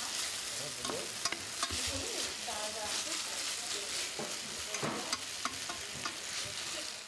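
Tomato, pepper and parsley sauce sizzling in a frying pan as a spatula stirs it, with short scrapes and clicks of the spatula against the pan over a steady hiss.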